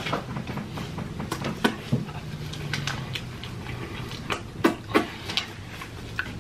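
A person chewing a mouthful of food, with scattered wet smacks and clicks of the mouth.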